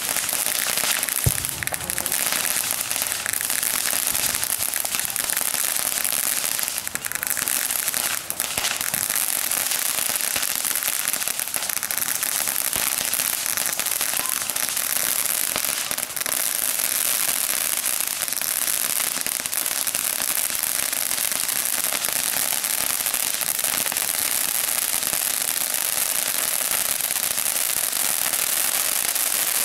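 Ground fountain firework burning steadily: a continuous loud hiss of spraying sparks with crackling throughout, and one sharp pop about a second in.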